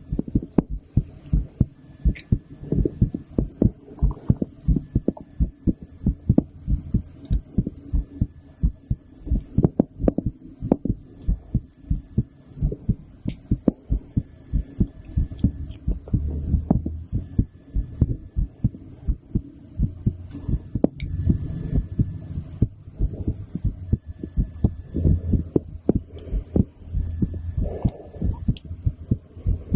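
A woman's heartbeat heard through a stethoscope: a steady, regular run of low beats.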